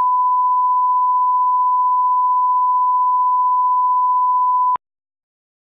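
Steady 1 kHz reference test tone that accompanies SMPTE colour bars, one unbroken pure beep that cuts off suddenly near the end.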